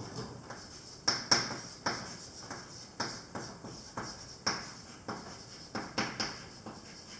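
Chalk tapping and scratching on a blackboard as words are written, a string of sharp, irregular taps about two a second. The loudest taps come a little over a second in.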